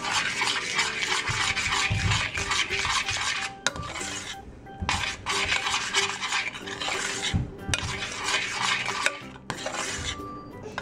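Metal spoon stirring and scraping melted chocolate around a small stainless steel saucepan, in several bouts with short pauses between them.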